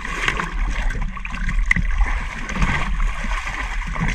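River water sloshing and gurgling into a plastic tub as it is dipped over the side of a boat and filled.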